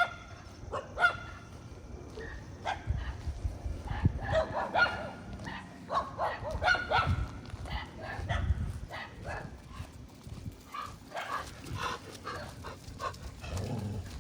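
Street dogs barking repeatedly in short sharp calls throughout: territorial barking at a strange dog that has entered their area.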